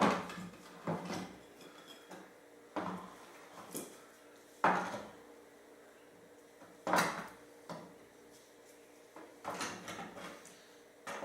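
Bench parts being handled and set in place: a run of sharp knocks and clunks at irregular intervals, about eight of them, the loudest about halfway through and again a little later.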